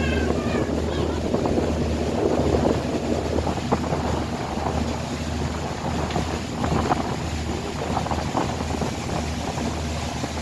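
A boat's engine running with a steady low drone, with wind buffeting the microphone and water rushing past. A few seagull cries sound right at the start.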